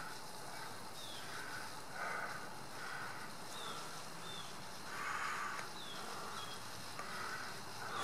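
Faint outdoor ambience with soft animal calls repeating about once a second, a louder one about five seconds in, and a few faint, short, high falling chirps between them.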